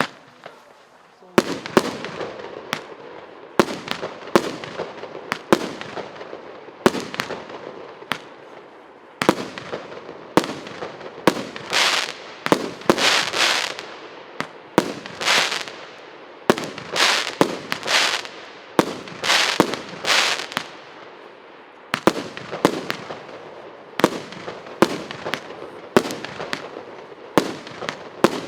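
A 48-shot, 1.25-inch consumer fireworks cake (Stolichny) firing. Sharp launch-and-burst bangs come about one to two a second, with longer crackling bursts through the middle stretch.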